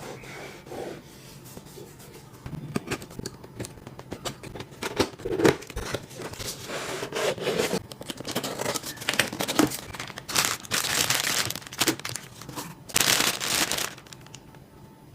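Packaging being handled and opened: crinkling, rustling and clicking, with two longer tearing sounds about ten and thirteen seconds in.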